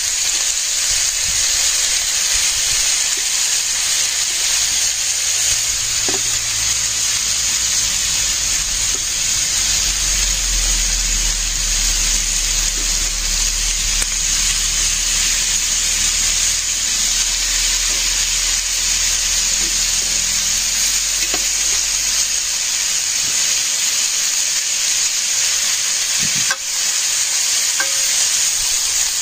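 Cubes of beef sizzling steadily as they sear in oil in an electric slow cooker's pot, with a few light clinks of forks turning the meat.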